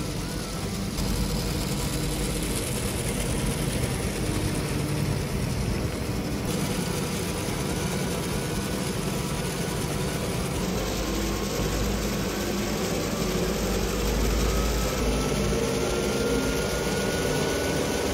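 Motorised treadmill belt running steadily under a motorised Lego Technic 42098 car transporter that drives against it, making a continuous mechanical whir of electric motors, belt and plastic gearing. A faint whine rises slowly in pitch in the second half.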